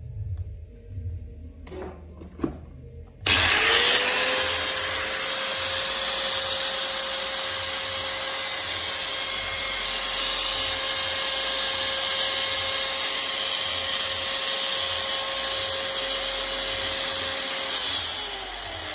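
Corded 220 V electric angle grinder run with no load. After a couple of handling knocks, it is switched on about three seconds in and spins up to speed at once. It runs with a steady whine for about fourteen seconds, then is switched off near the end and winds down with a falling whine.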